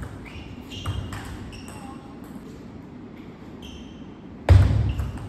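Table tennis rally: a celluloid ball clicking off rackets and the table, with rubber-soled shoes squeaking on the sports floor. A single loud, heavy thud comes about four and a half seconds in.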